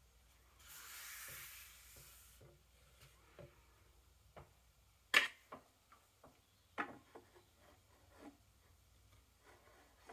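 Olive Pontewax leather hide being handled: a brief rubbing swish about a second in, then scattered soft taps and knocks as it is laid out on a wooden desk, the sharpest about five seconds in.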